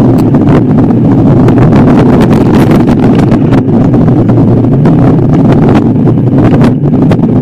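A motor vehicle's engine running loud and steady while driving, with many short knocks and rattles.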